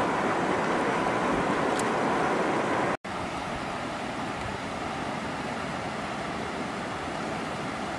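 Steady rush of flowing river water. It drops out for an instant about three seconds in and resumes a little quieter.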